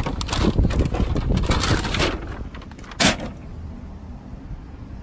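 Rustling and clattering handling noise as someone climbs into a car through its open door, with one sharp thump about three seconds in.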